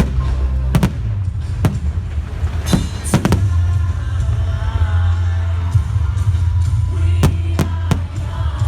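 Loud music with a heavy bass line, over which fireworks go off in sharp bangs: several in the first few seconds, then three in quick succession near the end.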